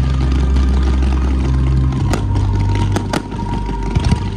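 Music from a fireworks show: a deep, sustained bass drone that shifts to a new note about halfway, with four sharp firework bangs in the second half.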